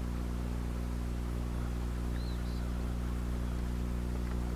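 A boat motor humming steadily at a low pitch, with a short high bird chirp about two seconds in.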